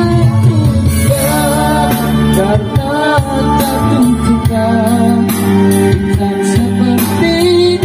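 A pop song with a singing voice, guitar and strong bass, played loud through a class D amplifier driving a 12-inch Precision Devices speaker.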